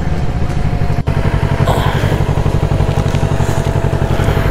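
Kawasaki Ninja 650's parallel-twin engine running steadily, heard close up from the bike, with a brief break about a second in.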